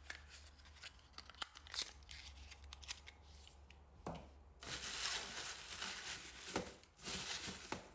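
Light clicks and taps of small cosmetic items being handled and set down. About four and a half seconds in, soft paper rustling starts as a hand reaches into a paper gift bag, with a short break near the end.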